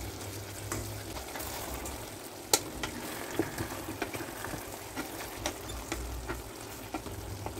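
Chicken adobo with potatoes simmering and sizzling in a rice cooker pot, a steady hiss. A few sharp clicks of a fork against the pot as the potatoes are pierced to test if they are cooked; the loudest comes about two and a half seconds in.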